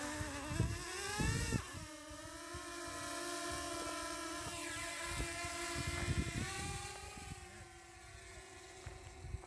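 A DJI Mini 2 drone's propellers spin up at takeoff with a rising whine, then settle into a steady whine as it lifts off and climbs. The whine fades over the last couple of seconds.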